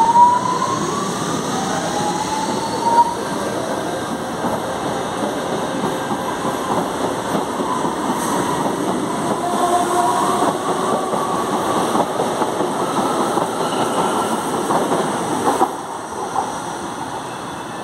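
CPTM Series 2070 Alstom electric train running on the rails, its traction motors giving a rising whine in the first few seconds over steady wheel and track noise. The noise drops off sharply near the end.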